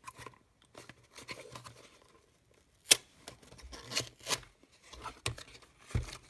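Thin cardboard box being opened by hand: its flaps and tuck tab rustle and scrape. There are a few sharp clicks among them, the loudest about three seconds in.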